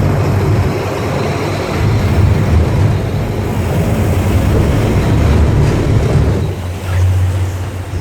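Boat engine running steadily under way, a low rumble mixed with wind and water noise, easing briefly about seven seconds in.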